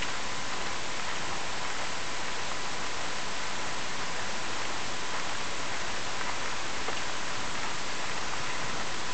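Steady hiss from a small camera's microphone, with a faint steady high tone under it.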